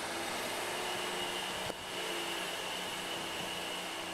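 Steady drone and hiss of a departing freight train's rear British Rail Class 66 diesel locomotive, with a thin steady high whine over it.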